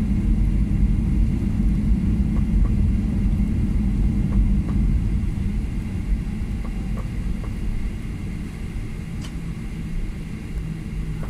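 Steady low rumble of a Ryanair Boeing 737 taxiing, heard from inside the cabin, with a faint steady engine whine. It eases slightly quieter in the second half.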